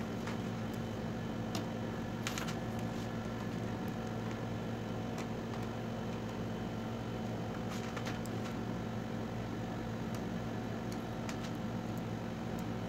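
Steady low machine hum in a small room, with a few faint light clicks and taps of parts being handled, notably about two seconds in and about eight seconds in.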